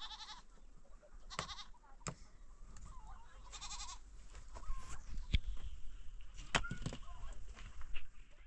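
Livestock bleating three short times, followed by a scatter of sharp knocks.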